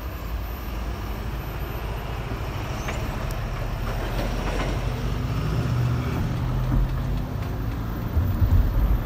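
Car engine and road noise heard from inside the cabin as the car moves off: a steady low rumble with a low engine hum.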